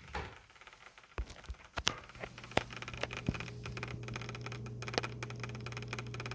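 A new HP Pavilion laptop making an odd noise: fast, fine crackling and scratching with scattered clicks, joined about two seconds in by a steady low hum.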